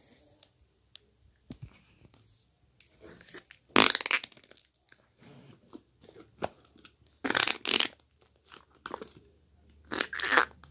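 Large, stretchy slime being pressed and popped by hand, trapped air bursting out of it with crackling pops. Three loud bursts come about four, seven and ten seconds in, with small clicks and crackles between.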